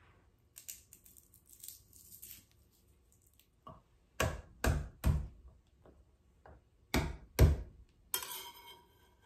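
Garlic cloves crushed with the flat of a kitchen knife on the countertop: light rustling at first, then five heavy thumps in two groups, three about four seconds in and two about seven seconds in, and a brief scrape near the end.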